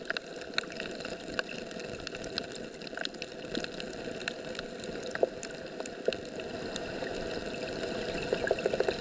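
Underwater ambience picked up by a submerged camera: a steady muffled watery hiss with scattered small clicks and crackles.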